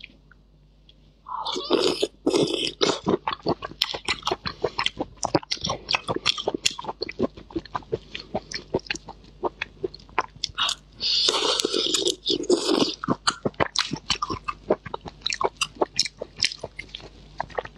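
Close-miked mouth sounds of a person eating raw red shrimp: quick, wet chewing and crunching clicks. There are two longer, louder stretches, about a second in and again about eleven seconds in.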